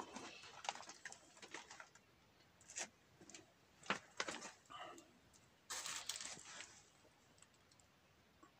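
Irregular rustles, scrapes and small knocks of someone moving about and handling things among piled old electronics, with a longer rustling scrape about six seconds in.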